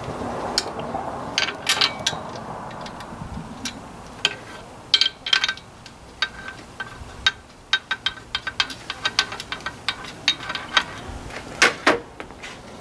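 Hand ratchet clicking in short runs, with light metal clinks of the tool, as the nut on the alternator's output terminal is worked loose. A quicker run of ratchet clicks comes past the middle, and two louder metal clanks come near the end.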